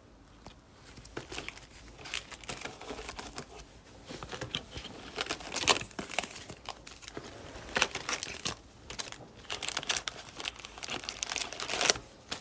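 Plastic wrapping and foil card packs crinkling and rustling as a trading-card hobby box is unwrapped and its tightly packed packs are worked out, with some tearing.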